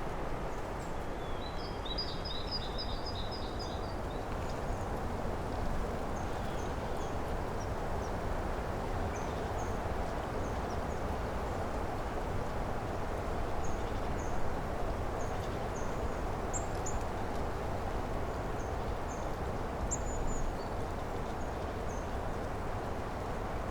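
Early-spring woodland ambience: a steady low rushing background with small birds calling over it. A quick run of repeated chirps comes a couple of seconds in, then scattered short, high single calls.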